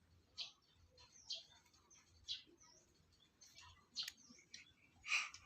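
Faint short sniffs and breaths from a six-month-old baby, about one a second, with a louder, sharper breath about five seconds in, as the baby gathers up to sneeze.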